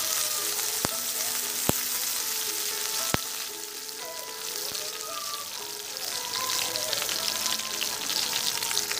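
Chopped onions and green chillies sizzling in freshly added hot oil in a kadai, a steady crackling hiss. Three sharp clicks come within the first three seconds or so.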